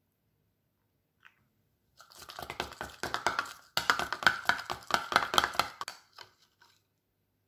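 A metal spoon stirring thick, freshly tinted cream in a small glass bowl, with rapid clinks and scrapes against the glass. It starts about two seconds in, breaks off briefly in the middle and fades to a few light taps near the end.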